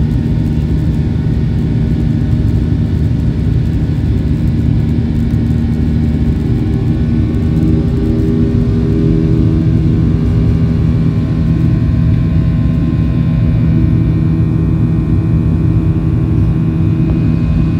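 Jet airliner engines heard from inside the cabin during the climb after takeoff: a steady low rumble with a few steady hums over it.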